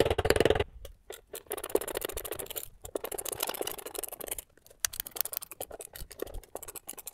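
Screwdriver backing out the screws of a small plate on a plastic intake manifold: rapid clicking and scraping of the driver and screws, with scattered single clicks in the last few seconds.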